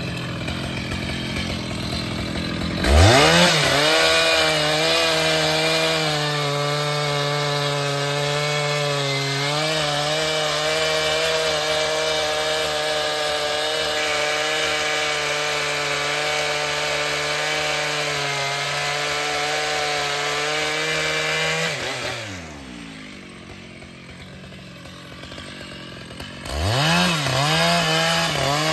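Two-stroke chainsaw revving up sharply about three seconds in and cutting wood under steady load for nearly twenty seconds. The engine then drops off and goes quieter, and revs up again near the end.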